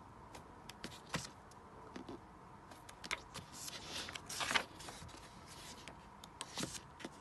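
Paper pages of a paperback manga volume being handled and turned: soft rustles and light ticks, with a louder sweep of a page turning about four seconds in and a shorter rustle near the end.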